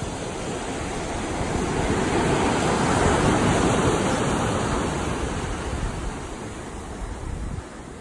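Ocean waves on the shore: a wash of surf swells to its loudest about three seconds in, then fades and drops off sharply near the end.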